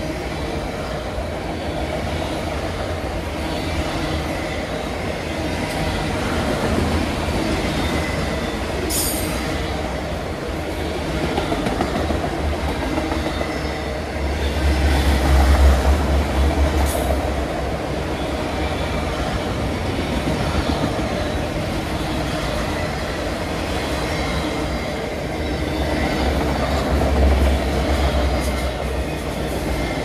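Empty autorack freight cars rolling past: a steady rumble of steel wheels on the rails, swelling louder around the middle and near the end, with two brief high-pitched squeals.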